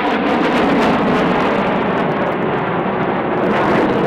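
Loud, steady jet noise from the Blue Angels' F/A-18 Hornets as the formation breaks apart and the jets fly off in separate directions.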